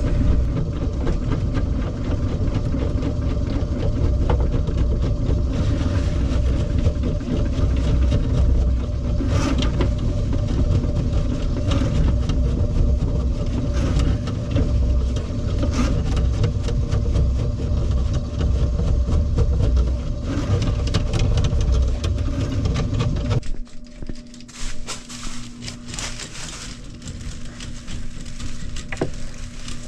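Drain-cleaning machine motor running steadily with a low rumble while a clogged, grease-filled kitchen sink drain line is being cleared, with occasional clicks and knocks. It cuts off abruptly about twenty-three seconds in, leaving quieter clicking and rubbing.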